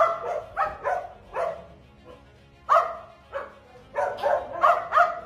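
Belgian Shepherd (Malinois) giving short, excited barks in quick irregular runs, several a second, with a pause of about a second in the middle.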